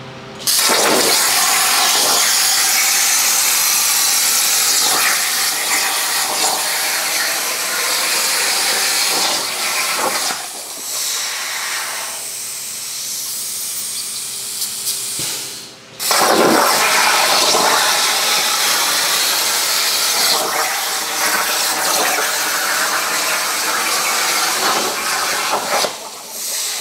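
CNC plasma cutter on a burn table cutting 10-gauge aluminum sheet: a loud, steady hiss. It stops sharply about halfway through and starts again.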